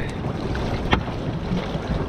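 Wind buffeting the microphone over the wash of a choppy sea around a small boat, with a single sharp click about a second in.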